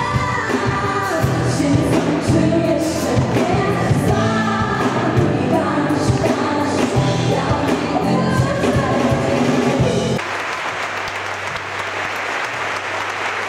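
A women's vocal group singing a pop song over music with drums and bass. The music stops abruptly about ten seconds in and the audience applauds.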